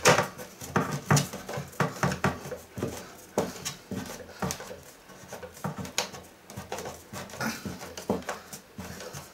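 Irregular knocks and clicks from hands working on and fastening the wooden panels of a pet-house cabinet, the loudest knock right at the start.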